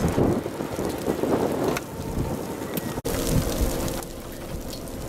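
Thunderstorm rain and gusty wind buffeting the microphone in uneven rumbling gusts, with a brief drop-out about three seconds in.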